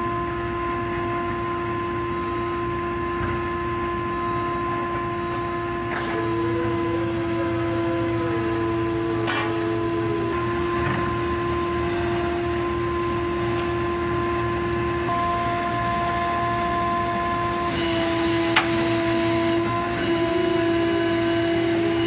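Steady hum of dockside machinery with a fixed high whine. A second whine rises and then falls over a few seconds near the middle, and there is a sharp clack a few seconds before the end.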